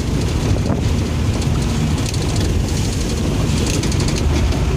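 Fuso truck's diesel engine and road noise heard inside the cab while driving, a steady low drone.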